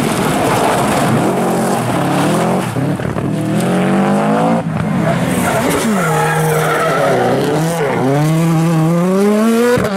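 Rally cars driven flat out, engines revving hard and climbing in pitch through the gears, with tyres skidding and squealing through the bends. The sound breaks off abruptly about halfway through as one car gives way to another, which brakes and then accelerates hard again near the end.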